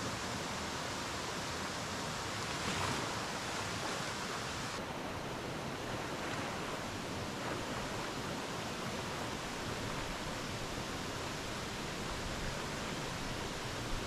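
Steady rush of a rocky stream, water flowing over stones, with light splashing from a person swimming in the pool.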